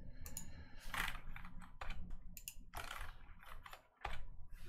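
Irregular clicks and taps from a computer keyboard and mouse, a handful of separate keystrokes and button clicks spread over a few seconds.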